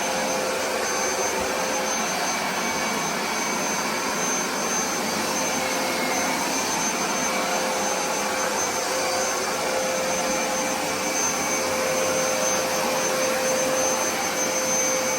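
Hoover SmartWash carpet cleaner running steadily in dry-only mode: an even rush of suction with a constant motor whine over it.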